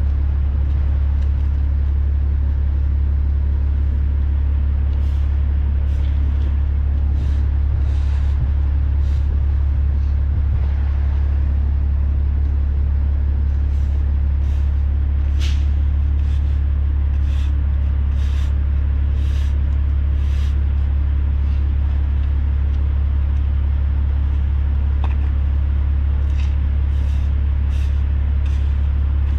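Heavy diesel engine idling steadily, with short sharp hisses now and then.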